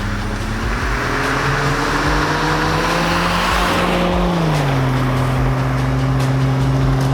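Jeep Cherokee XJ driving under acceleration, its engine note climbing steadily for a few seconds. About four and a half seconds in, the pitch drops and then holds steady lower down, over road noise.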